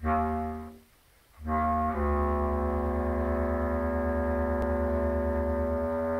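Bass clarinet and contrabass clarinet duo playing slow, held notes. A first note dies away within a second. After a short pause, both instruments sound long sustained tones, with the contrabass clarinet holding a very low note underneath.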